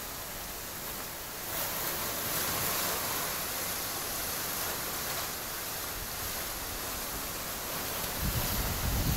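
Strong wind blowing through palm fronds as a steady hiss. From about eight seconds in, gusts buffet the microphone with a low, uneven rumble.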